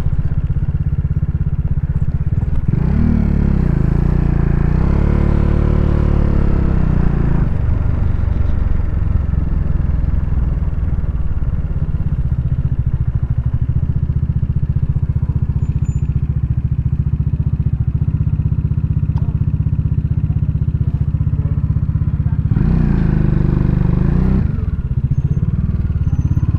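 Bajaj Dominar motorcycle's single-cylinder engine running at low speed as the bike rolls slowly along. The revs rise and fall for a few seconds, about three seconds in and again near the end.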